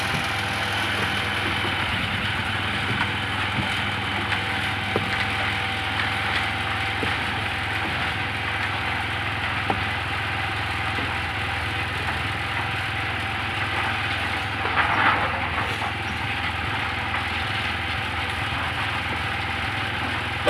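Engine of a portable drum concrete mixer running steadily, with scattered knocks and a brief louder clatter about fifteen seconds in.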